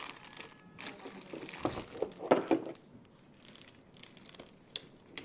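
Irregular crinkling and rustling, as of something being handled, loudest about two seconds in, followed by scattered light clicks.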